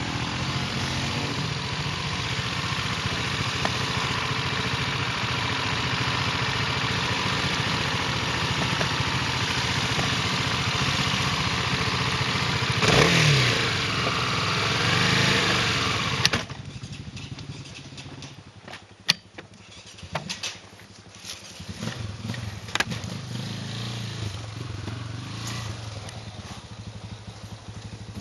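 Motorcycle engine running under way with heavy wind and road noise, revving up and back down briefly about halfway through. A little past halfway the sound drops abruptly to a quieter low engine run with scattered knocks and clatter.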